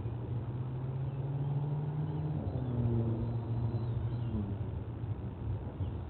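A distant engine drones steadily, its low pitch shifting down slightly about two and a half seconds in. Faint high bird chirps come through now and then.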